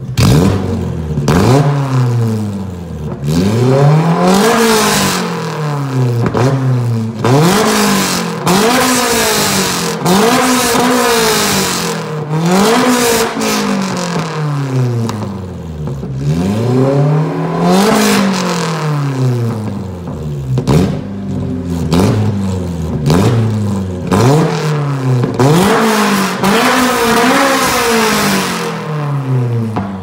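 Honda F20C 2.0-litre four-cylinder engine revved again and again through a straight-pipe exhaust with no silencer, each rev climbing and falling back over a second or two.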